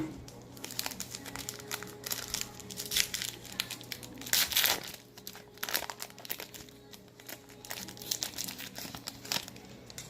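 Foil trading-card pack wrapper being torn open and crinkled, in irregular rustling bursts with the loudest tear about four and a half seconds in.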